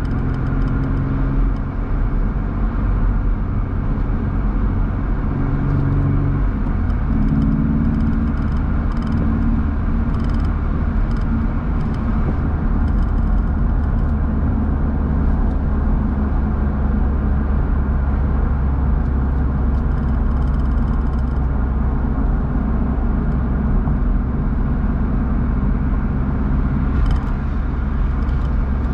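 BMW roadster driving along, its engine running steadily under a constant rush of wind and road noise. The engine note changes pitch about seven seconds in.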